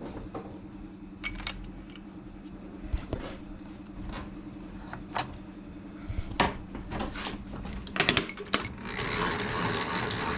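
Scattered metal clinks and knocks as a workpiece is handled and set into a milling machine vise, over a steady low hum. A scraping, rasping noise runs through the last second or so.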